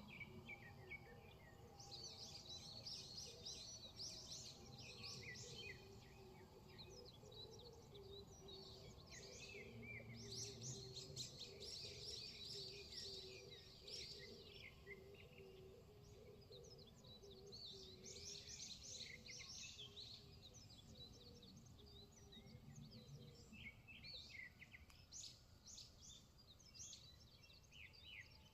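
Faint wild birdsong: rapid high chirps and trills come in four bursts several seconds apart. A faint low steady hum runs underneath.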